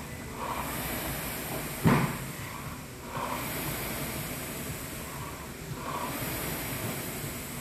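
Air rowing machine's fan flywheel spinning up with each pull, in surges about every two and a half seconds. A sharp thump about two seconds in is the loudest sound.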